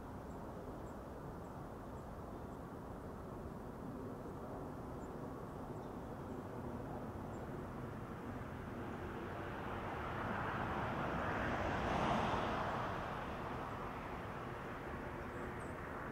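Steady outdoor background rumble, with a passing vehicle that builds in the second half, is loudest about twelve seconds in, and then fades away.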